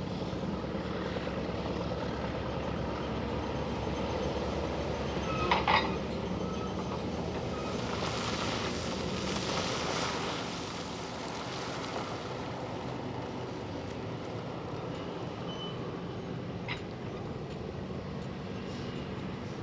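A Monighan 9W walking dragline running steadily as it works its loaded bucket. A brief sharp metallic clank comes about six seconds in, and from about eight to ten seconds rock and dirt pour out of the dumping bucket.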